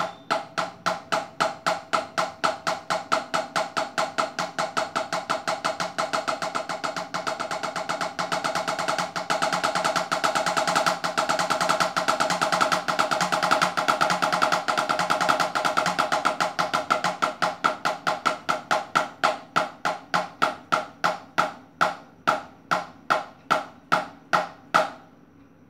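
Drumsticks playing an LRLL RRLR sticking pattern on an Octapad, each stroke a short pitched tap. The strokes start at about two or three a second, speed up into a fast, even roll in the middle, then slow back down to single strokes and stop near the end.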